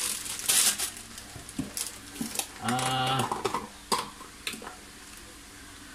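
A few soft clicks and taps from kitchen items being handled, with a brief murmured word about three seconds in.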